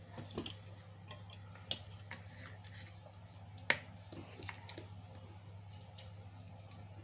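Small clicks and taps of hands handling an RCA jack plate and audio cable wires, scattered through the stretch with the sharpest click just past halfway. A low steady hum sits underneath.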